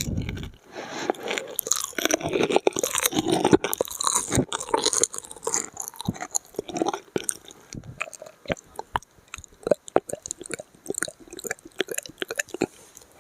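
Close-miked ASMR mouth sounds: wet smacking and mouth noises in the first half, then a rapid run of sharp tongue and mouth clicks.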